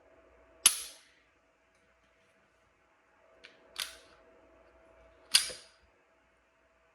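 Glock 26 pistol fitted with an aftermarket Tyrant Designs trigger being dry-fired: three sharp metallic clicks, about a second in, near four seconds and near five and a half seconds, with a faint click just before the middle one.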